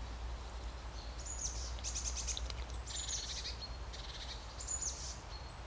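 A small songbird singing in woodland: a run of high chirps, short trills and quick falling notes starting about a second in and stopping shortly before the end, over a steady low background rumble.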